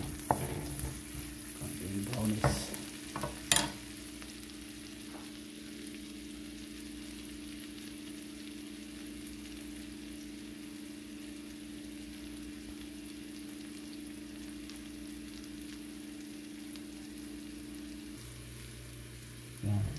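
Minced garlic sizzling in melted butter in a wok. A wooden spatula scrapes and knocks against the pan a few times in the first four seconds, then there is a steady sizzle over a low hum.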